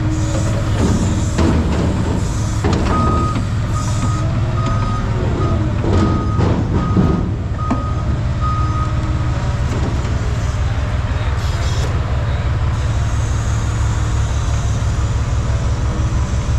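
Forklift backing up, its reversing alarm giving about eight short, evenly spaced beeps for a few seconds before stopping, over the steady rumble of the running machine.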